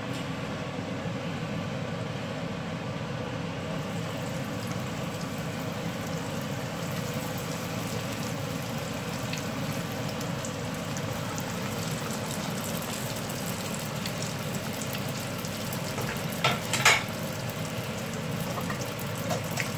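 Spring rolls deep-frying in a saucepan of hot oil: a steady sizzle as they crisp on medium-high heat. Two sharp clicks stand out near the end.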